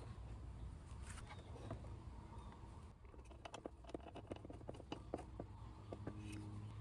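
Faint clicks and taps of a screwdriver and hands working a screw on a scooter's plastic front panel, several small ticks a second through the middle.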